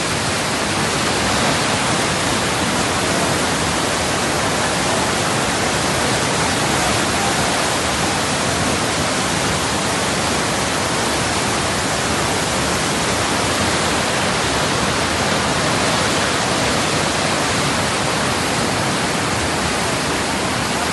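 Steady rushing noise of a river in flash flood, muddy water racing at full spate, even and unbroken throughout.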